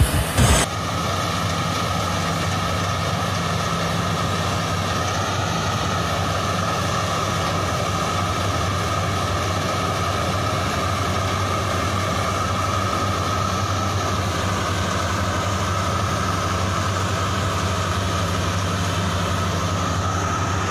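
Combine harvester engine running steadily, with a constant high whine over its hum and a few knocks right at the start.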